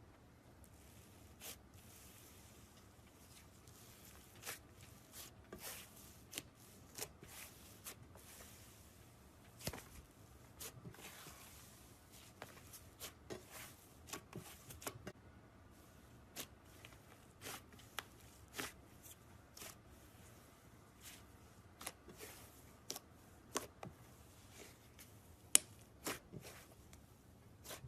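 Slime being squeezed and worked by hand, giving faint, irregular small clicks and pops, with one sharper pop near the end.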